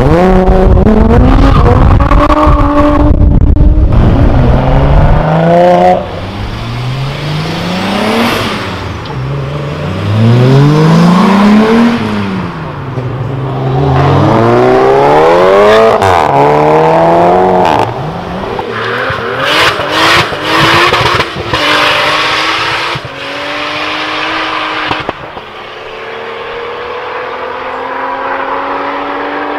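Volkswagen VR6 narrow-angle six-cylinder engines in modified Golfs accelerating hard, several cars in turn, their note climbing and dropping back with each gear change. Near the end a quieter engine note rises steadily as a car pulls away down the track.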